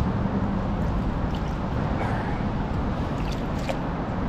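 Steady rushing of stream water, an even wash heavy in the low range, with a few faint small ticks.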